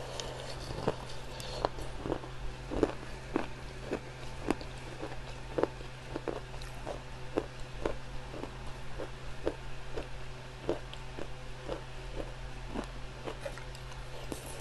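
Clay crunching and cracking, a crisp snap about twice a second, over a steady low hum.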